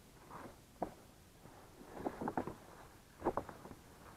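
A handful of light knocks and rattles of wooden battens being handled during roof work, bunched in quick groups about two and three seconds in.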